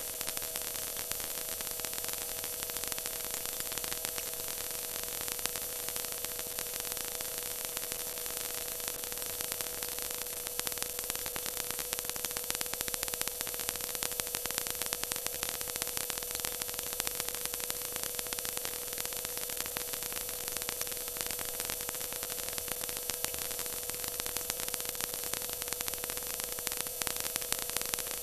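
Stock car's V8 engine held at high revs at a steady speed, heard from inside the cockpit together with wind and road noise through an overloaded onboard camera mic, so it comes out as a harsh, steady hiss with a constant drone underneath.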